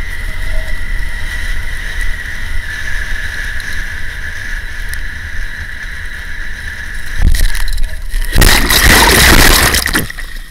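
Wind buffeting a helmet camera on a fast-towed inflatable tube, a steady rumble with a thin steady high tone over it. About eight seconds in, a loud rush of splashing water as the tube crashes and the rider goes into the lake, dropping away just before the end.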